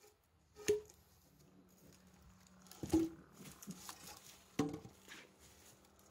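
Three short, sharp knocks, about 0.7, 3.0 and 4.6 seconds in, each with a brief low ring after it.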